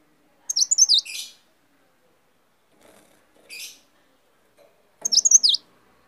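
Cikrak daun, a small caged songbird, chirping in two short bursts of quick, high, sweeping notes, one about half a second in and one near the end, with a fainter single note between them.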